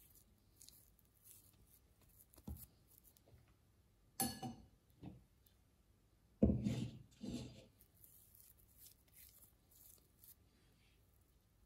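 Hands handling a bamboo bowl and bread dough on a wooden table: a few knocks and soft thumps, the loudest about six and a half seconds in, with light rubbing and scraping of fingers inside the bowl.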